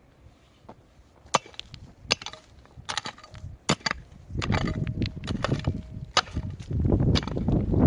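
A series of about nine sharp, irregularly spaced knocks, like blows on wood, with a low rumbling noise coming up from about halfway through.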